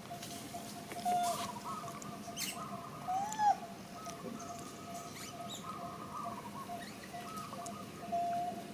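Short squeaky animal calls, with one arched, rising-then-falling call about three seconds in, over a steady high hum.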